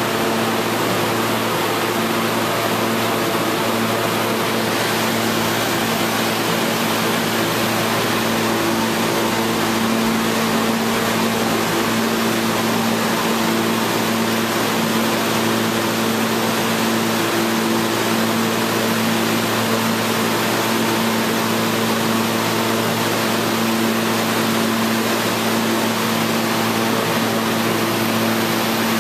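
R68A subway train standing at the platform, its on-board equipment giving off a steady drone with several fixed hum tones over a rushing hiss.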